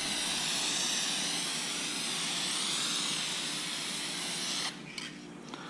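Aerosol can of hydro-dipping activator spraying onto the print film floating on the water, one long steady hiss that cuts off near the end. A few light clicks follow.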